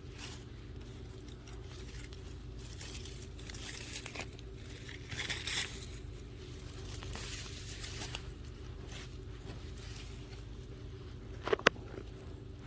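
Hands digging through garden soil for potatoes, scraping and rustling in scattered bursts, with one sharp click about a second before the end, over a steady low hum.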